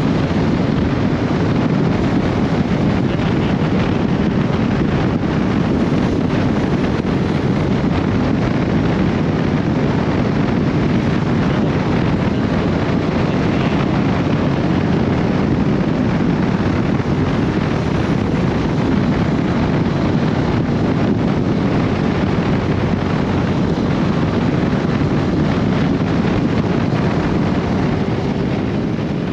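Steady rush of wind over the microphone over the drone of a Honda CB1300SB motorcycle riding at a steady speed.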